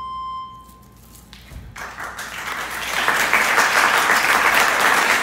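A final held note of the song's accompaniment dies away, then audience applause breaks out about two seconds in and swells into loud, steady clapping.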